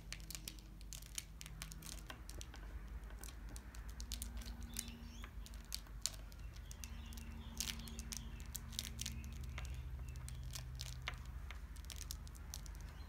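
Faint handling sounds of fingers rolling a sheet of beeswax around a candle wick on a tabletop: irregular small clicks and crinkles, over a low steady hum.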